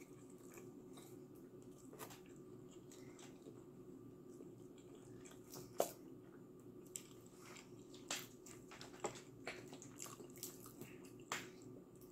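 Plastic squeeze bottle of ranch dressing being shaken and squeezed over pizza: scattered soft clicks and squishy sputters over a low steady hum.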